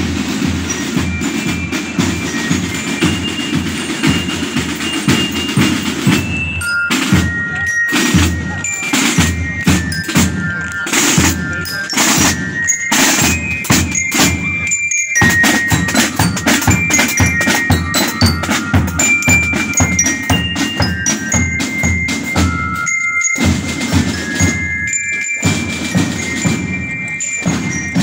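Sea cadet marching band playing a march: drums beat a steady rhythm under a high melody.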